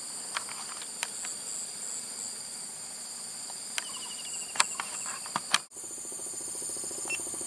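Steady high-pitched insect chorus, crickets or similar, shrilling in a wet grassy field, with a few sharp clicks scattered through it. A little before the end the sound briefly drops out and a low pulsing hum joins the insects.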